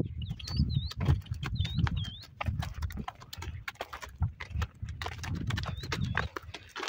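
Donkey's hooves clip-clopping on a gravel track, a quick irregular run of steps over a low rumble. A few short high chirps come in pairs near the start and again near the end.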